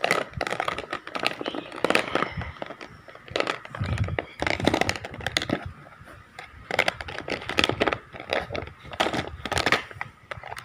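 Wax crayons in a box of 24 clicking and rattling against each other and the box as fingers rummage through them close to the microphone, in irregular quick taps with a dull bump about four seconds in.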